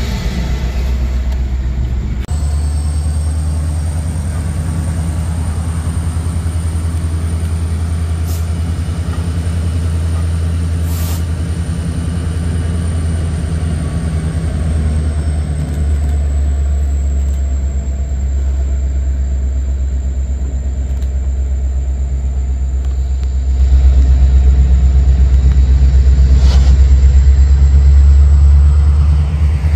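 EMD SD70M diesel locomotive approaching slowly at the head of a grain train, a steady low engine rumble that grows louder near the end as it draws closer.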